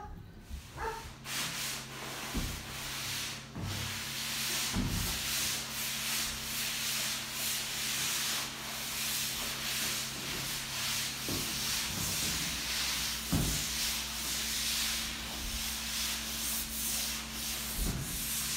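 Continuous rasping, rubbing hiss like sanding or scraping, over a faint steady low hum, with a few dull thumps scattered through it.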